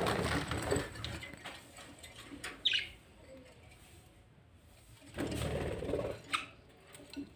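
Two bursts of rattling, each about a second long, one at the start and one about five seconds in, with a single short high budgerigar chirp falling in pitch between them and a few light clicks near the end.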